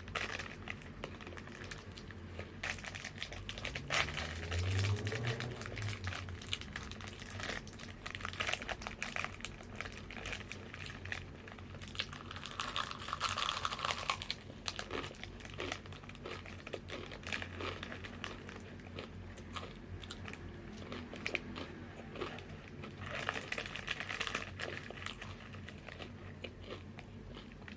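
Crinkling of a plastic chip bag, with crisp chips crunching as they are bitten and chewed close to the microphone. The crinkly stretches come about halfway through and again near the end.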